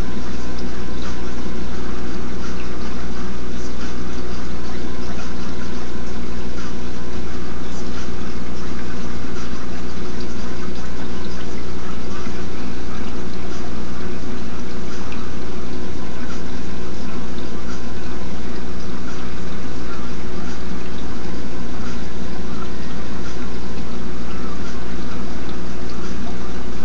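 Saltwater aquarium's water circulation: a steady pump hum under running, trickling water, unchanging throughout.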